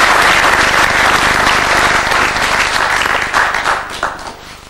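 Applause from a group of people, dense and steady at first, then thinning out and dying away over the last second.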